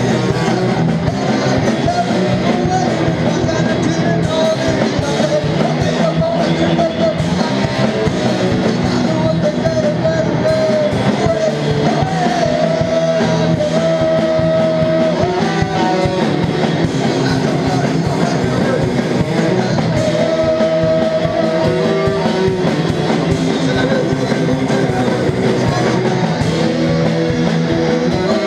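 Live rock band playing a loud punk rock song on electric guitar, bass guitar and drum kit, without a break.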